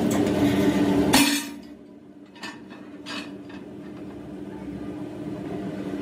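Industrial press running with a loud hum that cuts off about a second in, leaving a low motor hum. A few light metallic clinks follow as a steel wheel-disc blank is shifted on the press die.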